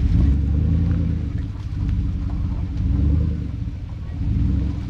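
Chevrolet Silverado pickup's engine revving up and easing off several times in a low rumble as the truck crawls through mud and rocks.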